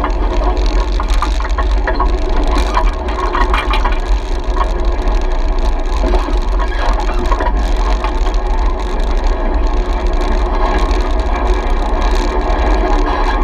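An off-road side-by-side or quad engine running steadily under way on a dirt trail, with a stream of rattles and clicks from the machine and a heavy low rumble.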